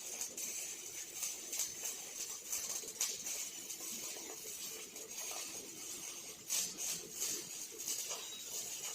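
Arc welding from a robot welding cell: a steady high crackling hiss with irregular sharp pops.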